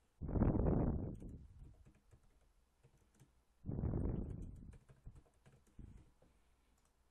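Typing on a computer keyboard in two quick bursts of about a second each, a few seconds apart, with faint scattered clicks in between.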